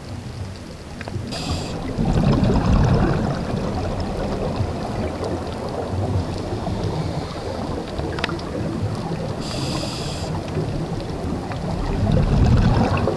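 Scuba diver breathing through a regulator: a short hiss of inhalation about a second and a half in, then a long rumble of exhaled bubbles; a second inhalation hiss around ten seconds in, followed by another burst of bubbles near the end.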